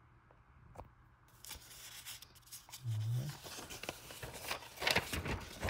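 Stamp-album pages being turned, paper rustling and rubbing. It starts about a second and a half in and is loudest near the end.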